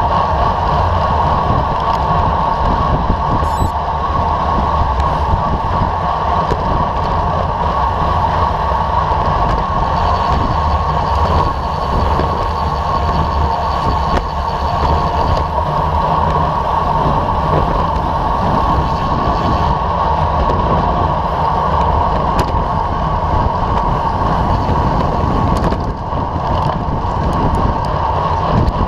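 Steady wind rush over a bicycle-mounted camera's microphone, mixed with road and tyre noise from a bike ridden at speed on asphalt.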